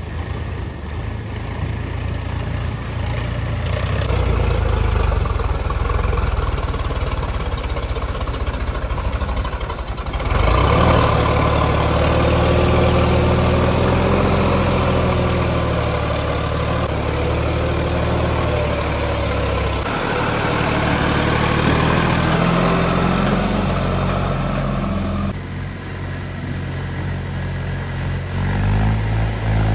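Diesel tractor engines running, mostly idling, with the engine note changing abruptly about ten seconds in and again near the end.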